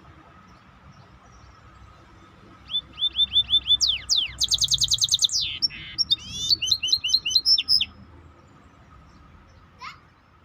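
A songbird sings one loud phrase of about five seconds: quick series of repeated sweeping notes, a rapid trill in the middle, then more repeated notes, followed by a single rising note near the end.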